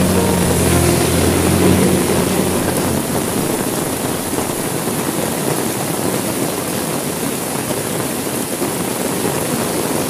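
Heavy rain falling steadily against window glass, an even hiss with no single drops standing out. Low sustained notes of background music fade out over the first two to three seconds.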